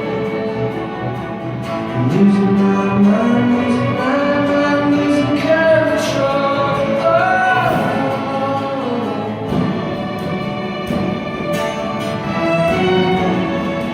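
Live rock song: a male singer backed by a band and a string orchestra, with sustained string notes and occasional drum or cymbal hits.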